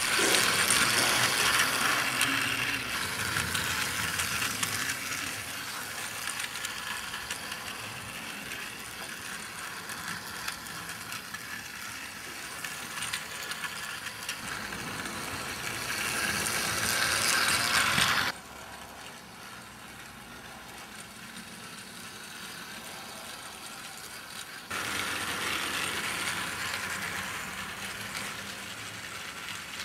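Battery-powered knockoff TOMY-style plastic Thomas toy locomotive running on plastic track: its small motor and gears whir with a rattly clatter. It grows louder, drops suddenly about two-thirds of the way through, and steps up again a little later.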